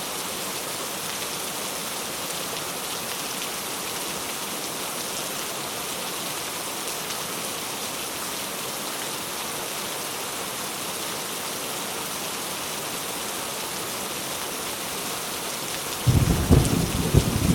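Steady rain falling in an even hiss. Near the end a sudden loud, low rumble of thunder breaks in.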